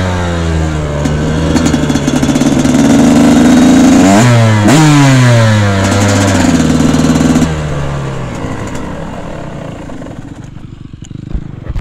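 Yamaha two-stroke dirt bike engine running under way, revs climbing, with a quick drop and sharp rise in revs about four seconds in. About seven and a half seconds in the throttle comes off and the engine falls to a quiet low idle.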